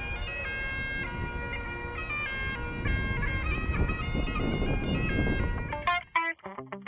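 Bagpipe music played outdoors: a melody of held notes over a steady drone, with low wind rumble on the microphone. About six seconds in, it breaks off into short, separate plucked notes with an echo effect.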